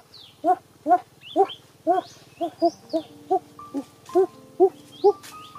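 An animal calling in short, evenly spaced calls about twice a second, with higher bird chirps above; held background-music notes come in about halfway through.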